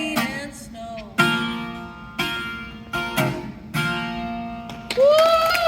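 Acoustic guitar playing the closing chords of a song, several single strums each left to ring out and fade. Near the end a voice rises into a held note.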